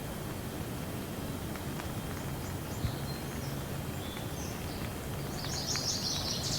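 Steady rain with a few scattered drop ticks, and small birds chirping over it, the chirps growing into a quick flurry near the end.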